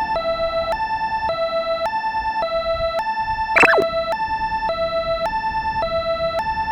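Electronic Japanese level-crossing alarm ringing, two tones alternating steadily between a lower and a higher pitch about every half second. About three and a half seconds in, a short falling whistle-like sweep cuts across it.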